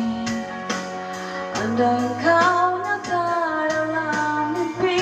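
Pop song playing: a high singing voice carries a gliding melody over guitar accompaniment.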